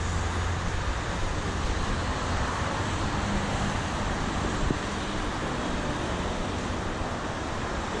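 Steady traffic and street noise with wind rumbling on the microphone, and a low hum that fades out about a second in. A single short knock about halfway through.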